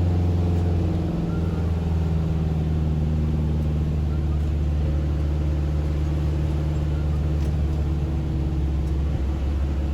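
Car cabin drone while driving: a steady low hum of engine and tyres on the road, whose pitch shifts slightly about a second in and again near the end.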